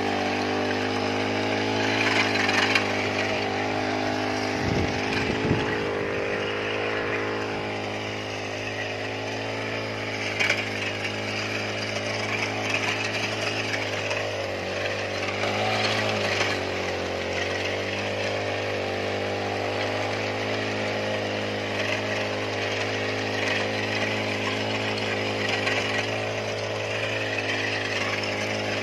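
Honda four-stroke brush cutter engine running steadily at high speed, driving a weeder attachment through dry soil. Its pitch wavers slightly as the head digs in, with a few sharp ticks along the way.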